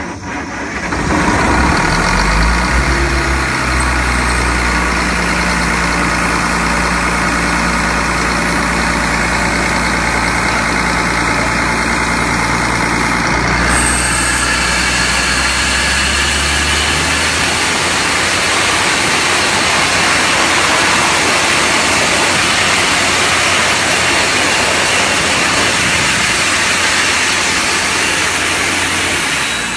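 Industrial air compressor running loud: a low engine drone under a steady rush of blasting air. About halfway through the rushing air gets brighter and hissier, and the low drone fades soon after.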